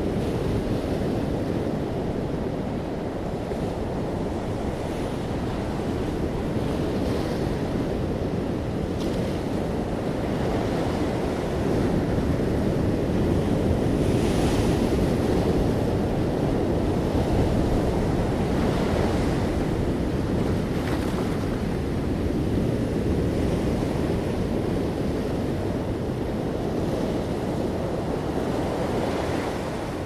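Ocean surf breaking and washing up a sand-and-pebble beach: a steady low rush that swells louder in the middle, with a hissing wash of water every few seconds.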